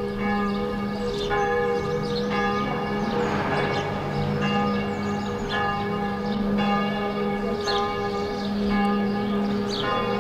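Church bells ringing, a new stroke about once a second, each one ringing on into the next.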